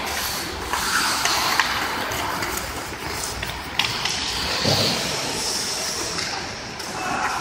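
Ice hockey play: skate blades hissing and scraping on the ice, with a few sharp clacks of sticks and puck.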